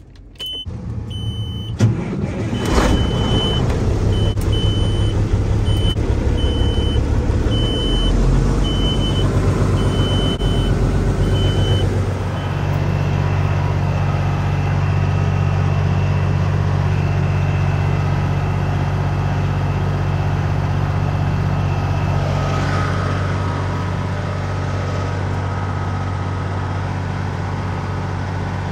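Semi truck's diesel engine being started: it cranks and catches within the first two seconds, runs, then settles into a steady idle about twelve seconds in. A high warning beep sounds about once a second until about twelve seconds in.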